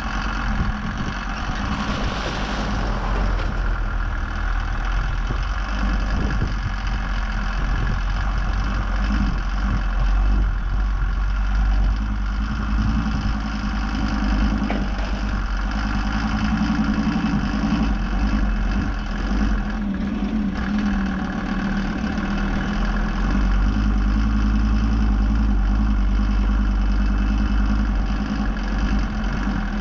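A vehicle engine running steadily, a continuous low drone that is slightly louder in the second half.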